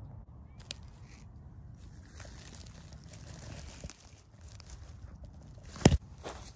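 Dry grass and stalks crackling and rustling right against the microphone as the phone lies at ground level, with a few knocks. The loudest is a sharp thump about a second before the end.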